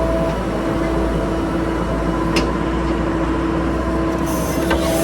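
Diesel engine of a JCB backhoe loader running steadily under work. A single sharp metallic knock comes about two and a half seconds in, with a few lighter clanks near the end.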